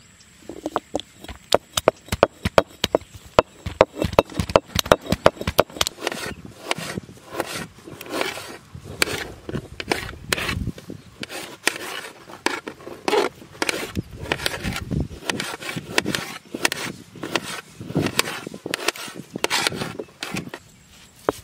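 Dried turmeric pieces being crushed with a stone roller on a flat grinding stone (ammi kal), a run of knocks and scraping rubs. About six seconds in it changes to a knife chopping tomatoes on a steel plate, quick sharp strokes that go on almost to the end.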